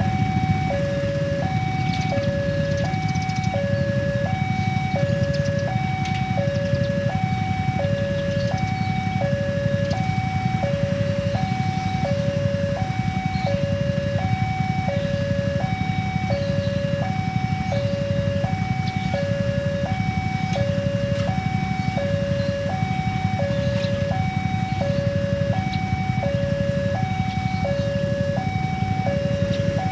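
Railway level-crossing warning alarm sounding its two-tone electronic signal, alternating steadily between a lower and a higher tone about every 0.7 seconds. It is the warning that the barriers are down and a train is approaching.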